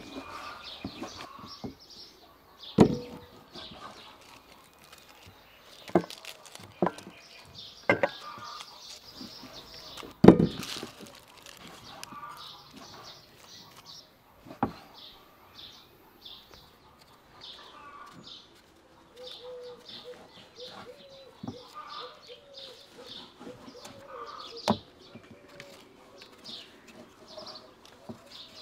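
Small birds chirping steadily, with scattered sharp knocks and taps of food preparation: a knife cutting on a wooden board and vegetables being handled on a table.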